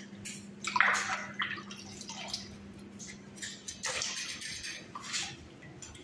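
Water splashing and dripping in a plastic basin as fish are scaled and rinsed by hand, in short irregular bursts, the loudest about a second in, over a steady low hum.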